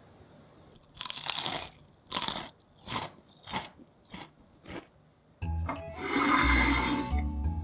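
Crisp fried french fries being bitten and chewed, about six crunches that grow shorter one after another, then music starts about five and a half seconds in.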